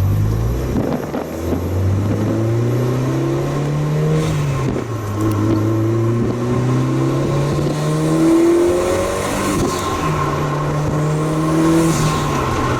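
Mitsubishi Lancer Evolution VIII MR's turbocharged 2.0-litre four-cylinder engine running under way, its pitch climbing and then dropping back twice. The engine is running again on new spark plugs after fouled plugs had stopped it starting.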